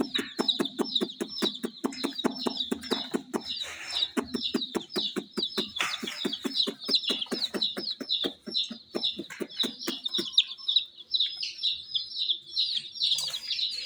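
A group of baby chicks peeping continuously, many high chirps overlapping. Under them a fast, even clicking of about four a second with a low hum runs until about ten seconds in, then stops.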